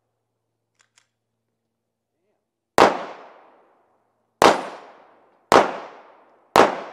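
Four pistol shots, the first about three seconds in and the rest about a second apart, each a sharp crack that dies away over about a second. Two faint clicks come about a second in.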